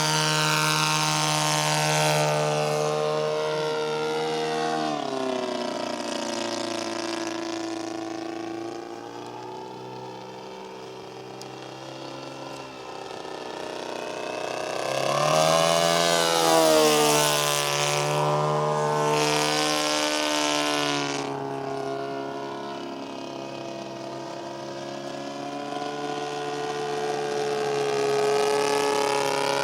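Seagull Decathlon 120 RC plane's ASP 160 twin engine running in flight. Its pitch drops as it passes a few seconds in, then rises and bends as it comes round again about halfway through. It grows louder and fainter with distance.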